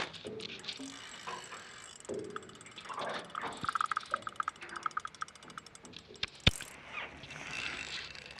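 Fishing reel being cranked, its gears and ratchet making rapid ticking, with a run of quick even clicks in the middle and one sharp click near the end.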